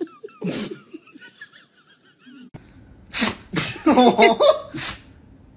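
A husky vocalising: short sneeze-like blasts and a wavering, pitched howl-like 'talking' sound about three to five seconds in. A dog's single short sneeze-like blast comes near the start.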